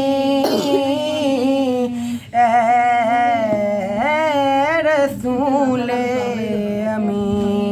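Unaccompanied devotional singing of an Urdu naat: a voice holding long, wavering notes with ornamented turns, with a short break about two seconds in.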